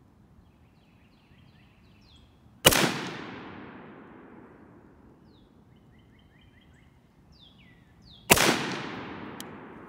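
Two single rifle shots from an M16A2-pattern rifle in 5.56 NATO, fired about five and a half seconds apart in slow, aimed fire for a group. Each sharp crack is followed by a long echo that fades over a couple of seconds.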